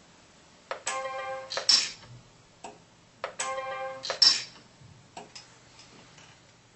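A pulse arc micro welder firing two welds on a small metal wire-and-disc part, about two and a half seconds apart: each a brief buzzing tone lasting under a second that ends in a sharp crack as the arc pulse discharges. A few faint clicks follow.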